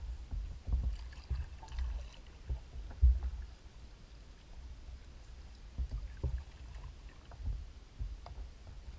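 Water slapping and knocking against a plastic kayak hull as it glides, heard as irregular low thumps, with a few light clicks about a second in.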